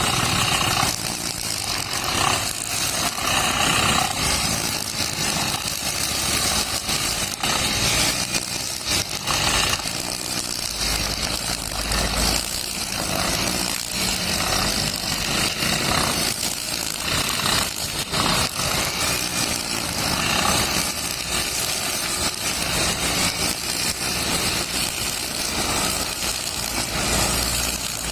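Petrol brush cutter fitted with nylon trimmer line, running at working speed while cutting grass. Its sound swells and eases every second or two.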